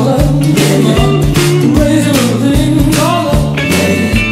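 Background music: a rock song with a steady drum beat and bass.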